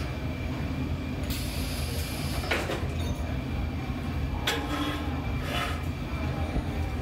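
Steady low roar of a glassblowing reheating furnace's (glory hole's) gas burner, with a few short knocks as the steel blowpipe is handled and set on the bench rails.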